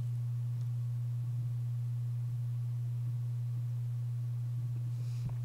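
Steady low electrical hum: one unchanging low tone with nothing else over it.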